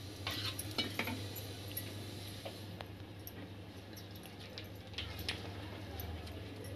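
Soft scattered taps, clicks and a little paper rustling from hands patting out a round of thalipeeth dough on a sheet of paper and lifting it, over a faint steady low hum.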